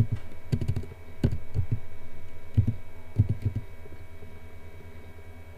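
Computer keyboard keys clicking in a few short runs over a steady low hum.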